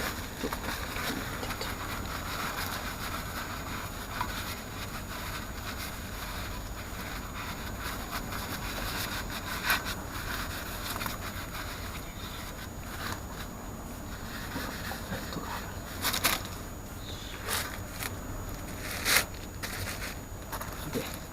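A threaded part being turned tight by hand until it stops turning: faint scraping and handling noise, with a few sharp clicks, the clearest about ten, sixteen and nineteen seconds in.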